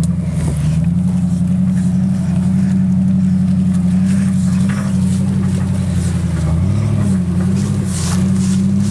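Lifted 2001 Jeep Grand Cherokee's 4.7-litre V8 running at a low, steady engine speed as it crawls up a rock climb. The pitch dips and rises briefly about seven seconds in.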